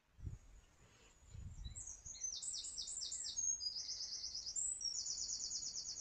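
Songbirds singing: quick, high trilled phrases repeated one after another, starting about two seconds in. A short low thump comes just at the start.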